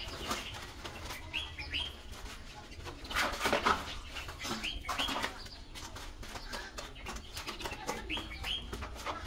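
A bird calling in pairs of short, high chirps, three times over, with a louder noisy burst about three seconds in.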